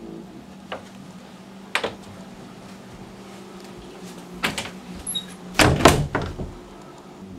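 A wooden door being handled: a few scattered clicks, then a cluster of louder knocks and clatter about six seconds in, over a steady low hum.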